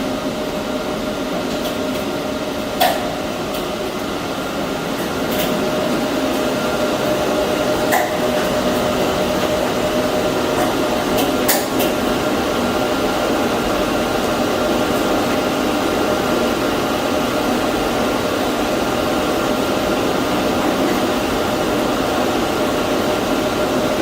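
Air conditioner unit running with a steady hum and a constant whine, a little louder after about five seconds, with a few short clicks.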